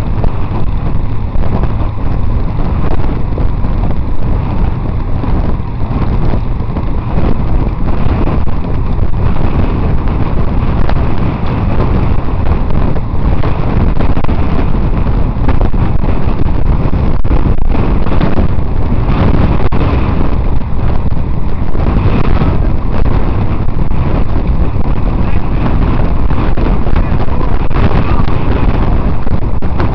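Wind buffeting the microphone of a camera carried on a moving bicycle, a loud steady low rumble.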